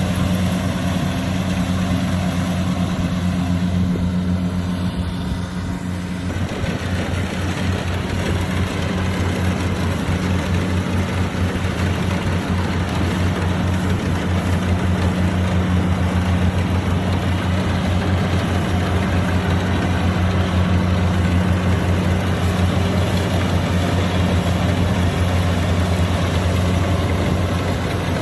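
Heavy farm machine's diesel engine running steadily under load. It eases a little about four seconds in, then runs harder with a fuller, pulsing sound from about six seconds on.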